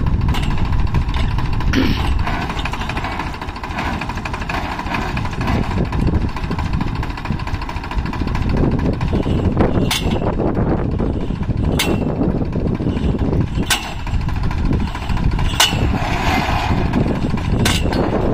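Tractor diesel engine running steadily while it powers a borewell rig that is hauling a stuck submersible motor up out of the bore. Sharp knocks come once early and then about every two seconds in the second half.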